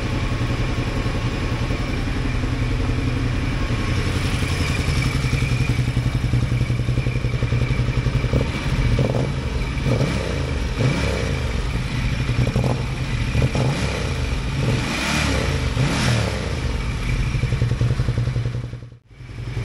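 Ducati L-twin engine idling steadily with its front cylinder's misfire cured, both cylinders now reading alike on the diagnostics. There is some light clatter in the middle, and the sound drops out briefly near the end.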